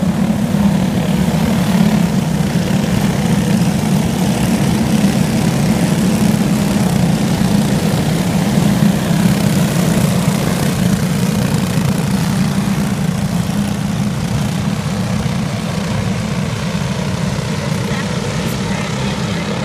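A pack of go-kart engines droning together as the field rolls around the dirt oval at pace speed, with no revving, easing off slowly in the second half as the karts move away.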